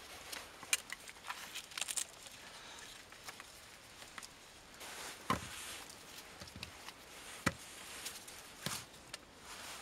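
Irregular light knocks, clicks and rustling of hand work on cut hazel sticks, with a few sharper knocks about five, seven and a half and nine seconds in.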